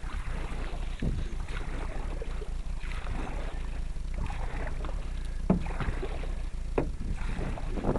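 Canoe paddles pulling hard through the water, a stroke or splash about every second or so, one or two of them ending in a sharper knock.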